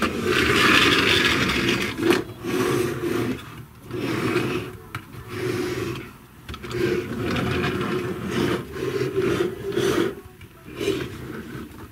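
Plastic wheels of a hand-pushed toy motorcycle rolling and rasping across a tabletop, in repeated pushes of a second or two with short breaks between them.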